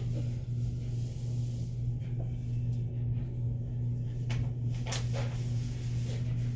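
A steady low hum, with a couple of faint clicks of handling a little past the middle.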